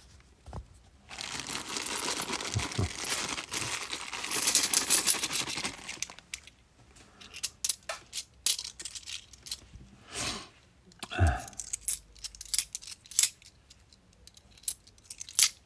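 Thin plastic coin bag crinkling and rustling for about five seconds, then scattered sharp clicks of £2 coins clinking against each other as they are handled and sorted in the hands.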